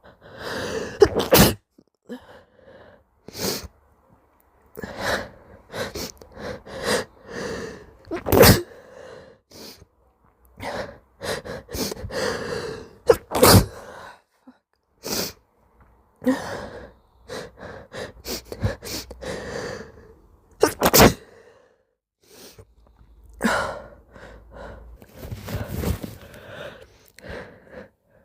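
A person's sneezing fit: gasping, hitching build-up breaths broken by several sharp, moist sneezes.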